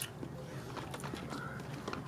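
Fingers picking through a cooked California pink crab's body, the shell and meat giving scattered small cracks and clicks.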